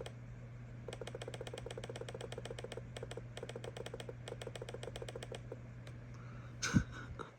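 Computer keyboard key tapped over and over in quick, even succession, about ten presses a second, applying smoothing again and again to a tuning table; the tapping stops about five and a half seconds in. A single thump follows near the end, over a steady low hum.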